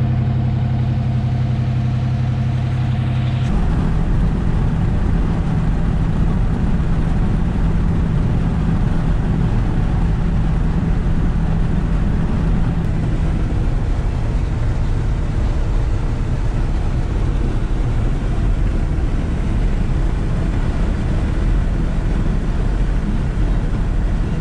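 Chevrolet C10 pickup's engine idling with an even hum, then pulling away about three and a half seconds in and running steadily under way with engine and road noise.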